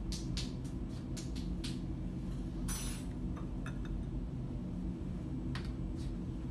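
Light clicks and clinks of plastic tubing being fitted to a small fuel-cell model car and of a glass beaker being picked up and set down on a bench, a run of quick clicks at first and a few more later, over a steady low hum.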